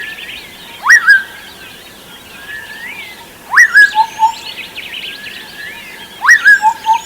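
Mixed birdsong. One bird repeats a loud call three times, about 2.7 seconds apart: a sharp upward sweep that drops back, then two short lower notes. Under it runs a continuous chorus of high chirps from other birds.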